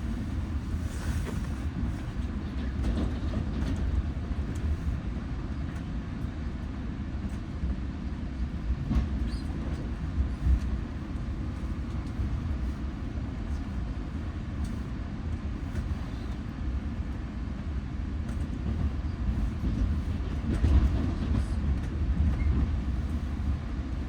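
Train rolling past with a steady low rumble and faint, scattered clicks.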